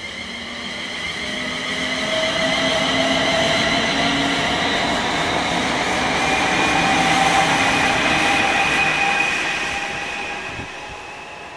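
Siemens Class 350 Desiro electric multiple unit passing close by, with an electric whine that rises gently in pitch over rolling noise. It swells to its loudest through the middle as the carriages go past, then fades near the end.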